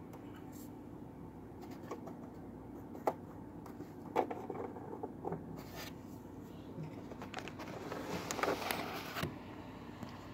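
Handling noise: scattered clicks and scrapes, busiest about eight to nine seconds in, over a steady low hum.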